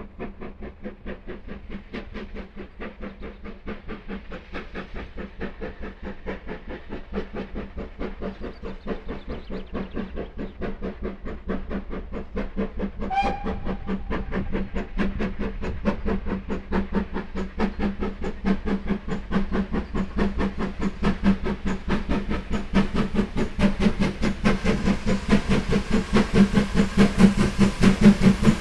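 GWR 4575 class 'small prairie' tank engine No. 5552 steaming hard up a gradient, its exhaust beating evenly and growing steadily louder as it approaches. A short whistle toot sounds about halfway through.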